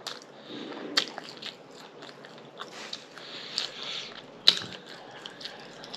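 A person biting and chewing food, with scattered crackly clicks and two sharper snaps about a second and about four and a half seconds in.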